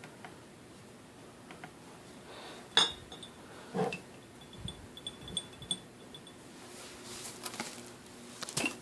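Glass wine glasses being handled and clinked together: a sharp clink with a short ringing tone about three seconds in, a duller knock a second later, then a few light ringing taps. Soft handling rustles near the end.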